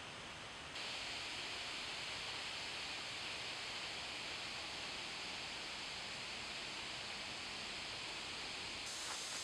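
Steady hiss of outdoor ambience, with no distinct events. It jumps a little louder about a second in.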